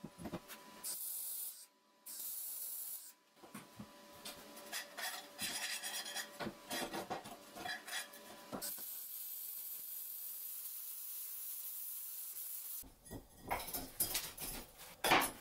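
Steel square tube scraping and rubbing against a steel plate as it is handled, with a steady hiss for about four seconds in the middle. Near the end come several sharp metal knocks and clanks as the pieces are set down on the plate.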